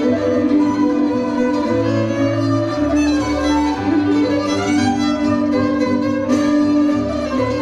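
Hungarian folk band playing a Szatmár tune from the village of Szatmárhiripi: a bowed violin melody over held viola chords, cimbalom and double bass, with the tárogató. A single sharp strike stands out about six seconds in.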